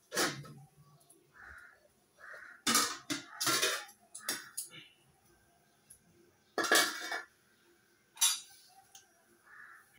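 Metal pots and kitchen utensils clanking and clattering as a pan for the tea is handled and set down: a clank right at the start, a flurry of clatters around three seconds in, and two more clanks near seven and eight seconds.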